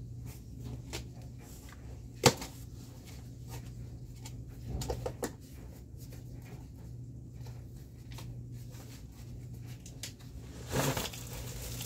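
Cardboard shipping box being opened and handled: scattered taps, clicks and scrapes, one sharp click a couple of seconds in, and a rustle of cardboard near the end, over a steady low hum.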